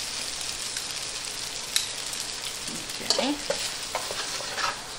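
Spaghetti being tossed with metal tongs in a frying pan of hot shrimp: a steady sizzle, with a few sharp clicks as the tongs work against the pan.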